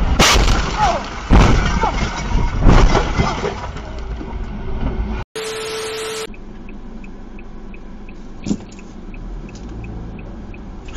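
A car collision recorded from the struck car: a loud crash a fraction of a second in, then more heavy knocks and scraping over the next few seconds over road noise. About five seconds in comes a second-long burst of TV static with a steady tone, followed by quieter traffic sound and a faint high beep about twice a second.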